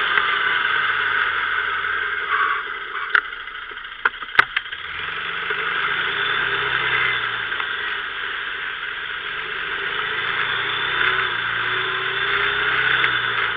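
Kymco MXU 500 quad's single-cylinder four-stroke engine running under varying throttle. The engine eases off for a couple of seconds near the middle, with a few sharp knocks about three and four and a half seconds in.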